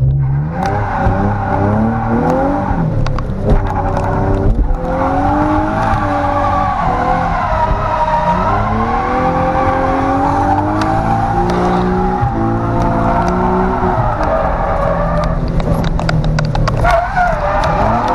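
Nissan 370Z's 3.7-litre V6 revving up and down repeatedly through a drift, heard from inside the cabin, with the tires squealing over it.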